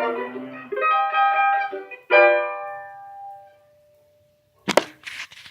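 Acoustic guitar strumming the closing chords of a song, the last chord ringing out and fading away over about two seconds. Near the end come a sharp knock and a short rustle.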